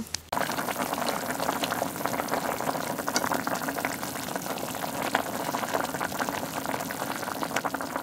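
Hotpot broth bubbling at a steady boil, with many small pops and spatters.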